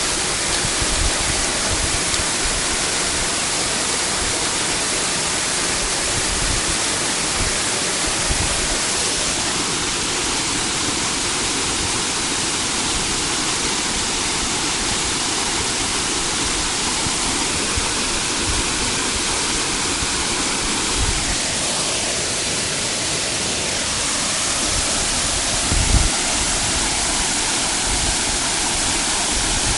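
Waterfall rushing: a steady, loud hiss of falling water, with one short low thump near the end.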